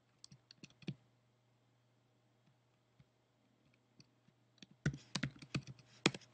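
Computer keyboard keys clicking. A few keystrokes come in the first second, then a quiet gap, then a quick run of keystrokes near the end.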